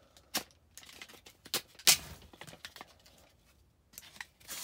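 Rigid plastic clamshell packaging crackling and snapping as a Milwaukee Fastback utility knife blade cuts through it and hands work it apart: a string of separate sharp cracks and crinkles, the loudest about two seconds in.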